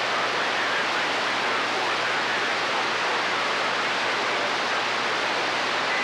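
Steady static hiss from a Galaxy CB radio's receiver with a faint low hum underneath and no voice on the channel, while an incoming signal holds the S-meter near 7.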